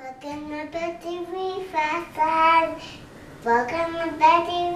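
A toddler's high voice singing and babbling in a sing-song way, a string of held, sliding notes with a short pause about three seconds in.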